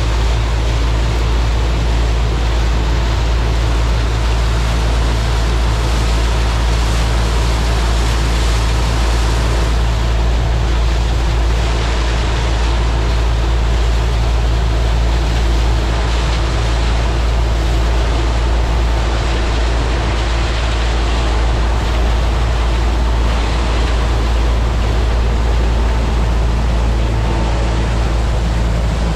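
New Holland TR99 combine's turbocharged six-cylinder engine and threshing machinery running steadily while harvesting soybeans, with a heavy, even wind rumble on the microphone.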